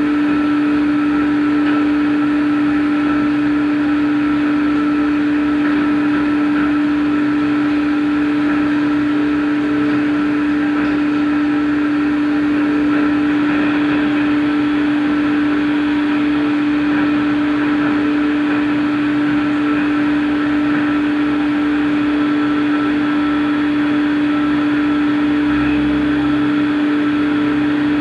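CNC machine running steadily, a loud unchanging tone over constant machine noise.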